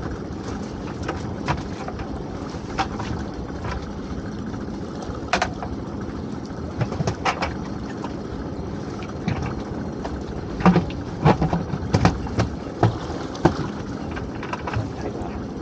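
Irregular clicks, knocks and rattles of hands working a lobster pot on a small boat's gunwale, over a steady low background. The knocks come thicker and sharper in the later part.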